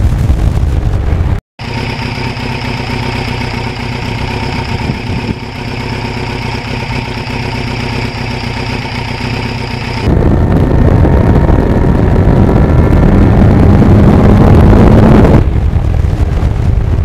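Motorcycle riding sound with heavy wind rush, a brief cut, then the 1989 Kawasaki GPX750R's inline-four engine idling steadily for several seconds, then riding with loud wind rush again.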